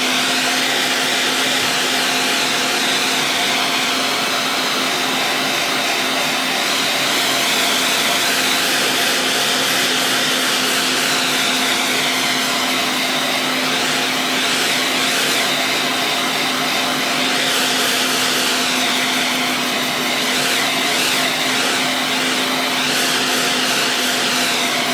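Heat gun running steadily on its lowest setting: a constant fan-motor hum under a rushing hiss of blown air.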